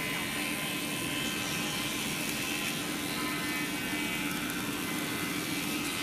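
Sawmill log-processing machinery running, a steady machine hum with a constant low tone.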